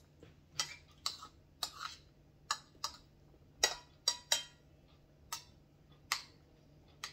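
Close-miked eating sounds: about a dozen short, sharp, irregular clicks and smacks of mouth and utensils while eating soup-soaked spinach.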